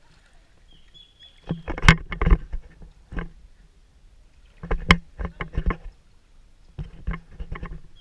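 Shallow water splashing and sloshing in several short bursts a couple of seconds apart, as of legs wading through knee-deep water.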